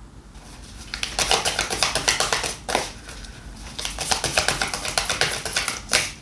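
Tarot cards being shuffled in the hands: two spells of rapid papery flicking and clicking, with a short pause between them.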